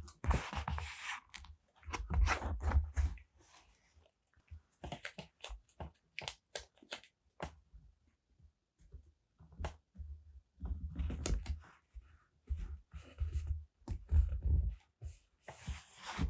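Close-miked paper and sticker handling: irregular crinkling, rustling and light taps, coming in short clusters with brief pauses between them.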